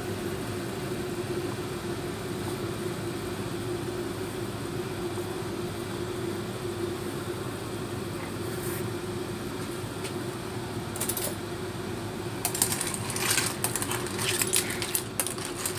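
Clam soup boiling hard in a stainless steel pot: a steady bubbling hiss with a steady hum beneath. In the last few seconds, clam shells clink and clatter against each other and the pot as they are stirred.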